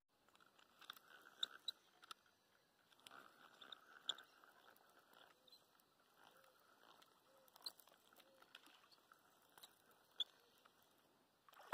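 Quiet riverside ambience with faint, scattered clicks and crackles, the loudest a few sharp ticks about a second and a half, four, seven and a half, and ten seconds in.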